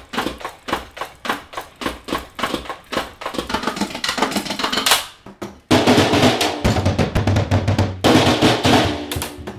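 Electronic drum kit being played with sticks: an even beat of about three hits a second, quickening into faster strokes, then after a brief pause a loud, dense run of rolls and fills.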